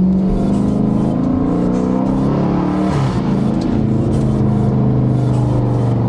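Car engine running under load. Its pitch drops and climbs again about three seconds in, like a gear change, then holds steady.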